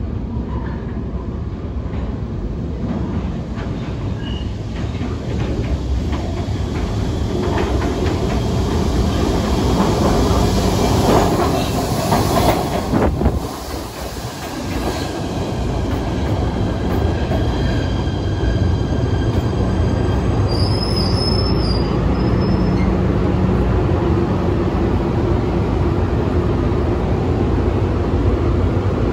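PATH PA5 subway train running in the underground station: a steady loud rumble of wheels on rail that briefly eases about halfway through. A short high wheel squeal comes about two-thirds of the way in.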